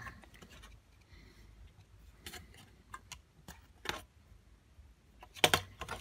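Screwdriver prying at the metal shield plates on a circuit board: scattered small metallic clicks and scrapes, with a louder clatter of clicking metal near the end.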